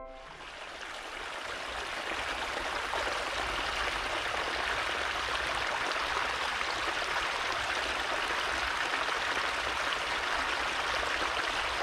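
Shallow brook running steadily over a gravel bed, a continuous rush of water that fades in over the first couple of seconds.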